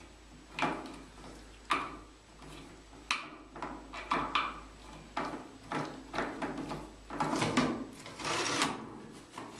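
Plastic heat exchange cell of a heat-recovery extractor fan being worked loose and slid out of its round housing: a run of irregular plastic scrapes, clicks and knocks.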